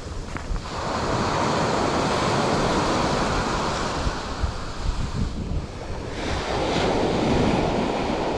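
Surf washing onto the shore with wind buffeting the microphone, the rush of water swelling twice.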